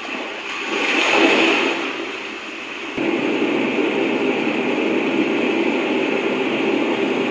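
Sound machine's built-in ocean setting: a surf hiss that swells to a peak about a second in and ebbs. About three seconds in it switches abruptly to the steady, even hiss of its white-noise setting.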